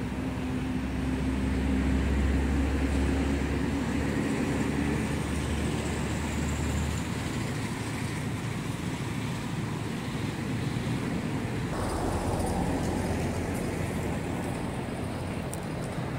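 Steady low rumble of motor traffic, with an engine's steady hum that stops about halfway through.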